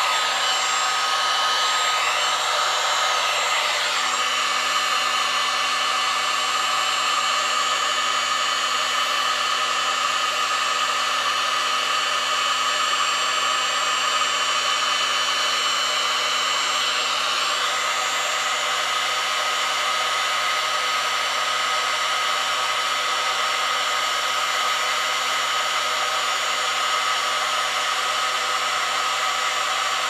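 Handheld electric heat gun running steadily, blowing hot air with a constant whine that shifts slightly in tone a few times.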